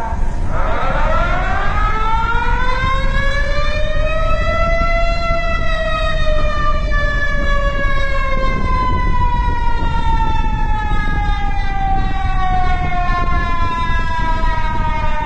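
Earthquake emergency alert siren: a tone with many overtones rises over the first few seconds to a peak about five seconds in, then slowly falls away, over a steady background noise.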